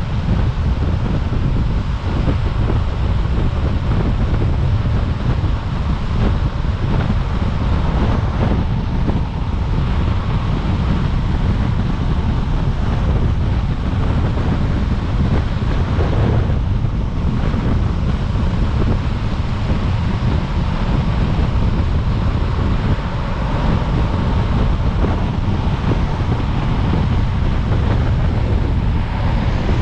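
Heavy wind buffeting an action camera's microphone at downhill speed, a steady deep rumble over the hiss of longboard wheels rolling on asphalt.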